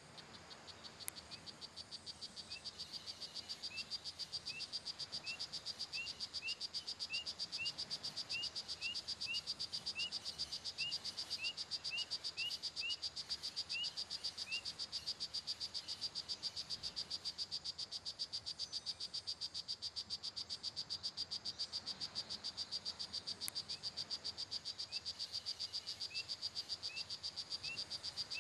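Tropical rainforest frog and insect chorus fading in: a fast, steady high-pitched trill throughout. Over it come short rising frog chirps about twice a second, which stop midway and start again near the end.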